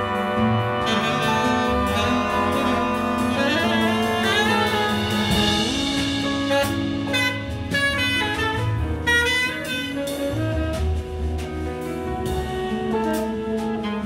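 Jazz big band playing: a tenor saxophone over brass chords, with a drum kit.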